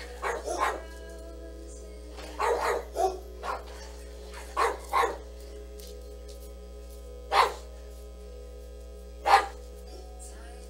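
Dog barking in short sharp barks: a quick string of three at the start, a burst of several between about two and three and a half seconds in, two more around five seconds, then single barks near seven and a half and nine and a half seconds.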